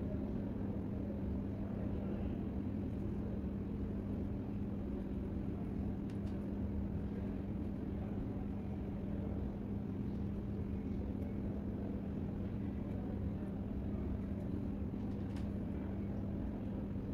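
Steady low rumble of background room noise with a constant low hum, and a few faint ticks.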